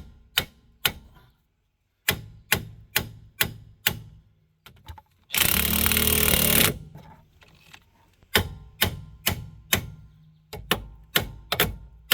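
Hammer blows on the stuck, pressed-in front hub assembly of a 2003 Chevy Malibu, struck in runs at about two a second to drive the hub out. Midway there is a loud burst of noise lasting over a second.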